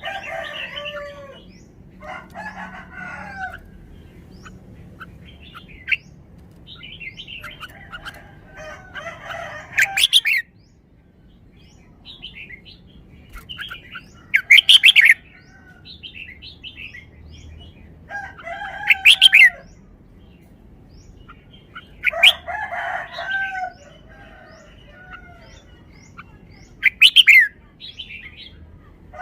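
Red-whiskered bulbul singing loud, short phrases roughly every four to five seconds, with softer bird calls in between.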